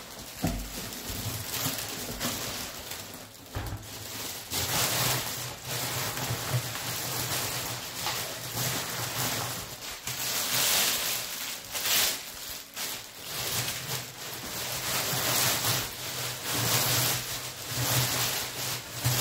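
Plastic wrapping bag rustling and crinkling as it is worked off a telescope tube, with a couple of low thumps in the first few seconds.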